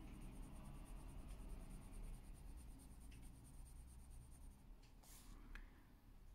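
Faint scratching of a coloured pencil on paper as a petal is lightly coloured in, with a few soft clicks and taps in the second half.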